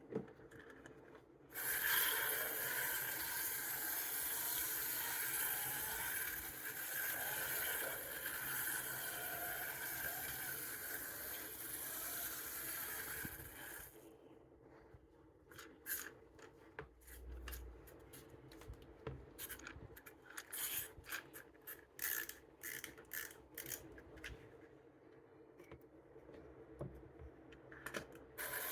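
Clockwork motor of a wind-up toy bus whirring steadily as it runs along a board-book track, stopping suddenly about 14 seconds in. After that come scattered light clicks and knocks of handling.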